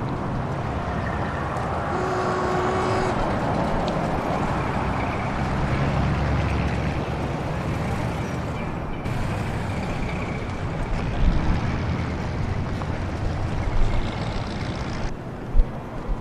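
Busy street ambience recreating a 1920s city: a dense, steady bed of early motor-vehicle traffic noise, with a short steady tone about two seconds in. The texture shifts abruptly twice, as layered recordings change.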